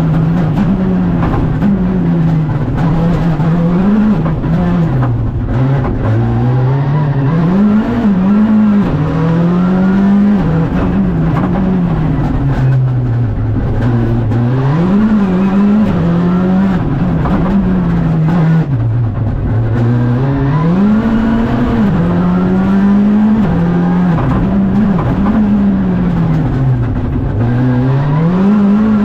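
Škoda Fabia Rally 2 Evo's turbocharged 1.6-litre four-cylinder engine at full stage pace, heard from inside the cockpit. Its pitch climbs and drops over and over as the driver shifts up and down through the sequential gearbox for the corners.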